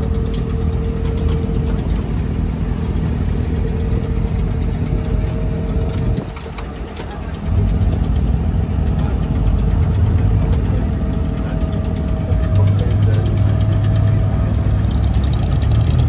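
Abra water taxi's inboard diesel engine running steadily under way. It eases off briefly about six seconds in, then runs harder again, pushing the wooden boat in toward the pier.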